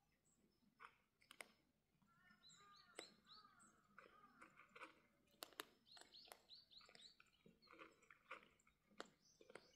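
Cats eating from a bowl: scattered sharp crunching clicks of chewing, a few a second at most, with small birds chirping throughout in the background. Faint overall.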